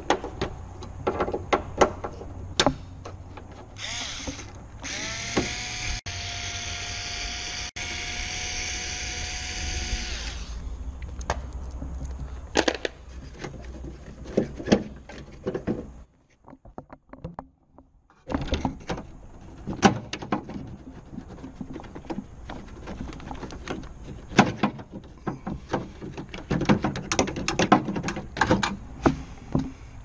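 Clicks, taps and knocks of hand tools and parts on a car door's sheet-metal inner panel. A power tool motor spins up about five seconds in and runs at a steady whine for about five seconds.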